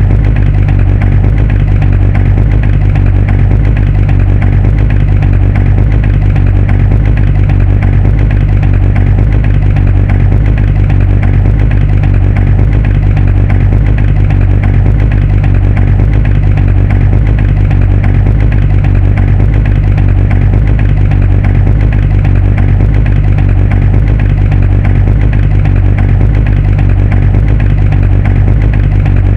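Muscle car engine idling steadily, a loud, even low rumble with no revving.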